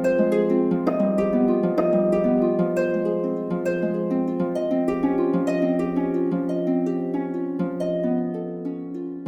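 Background music: a light tune of quick plucked-string notes, harp-like, over a steady low note, fading a little toward the end.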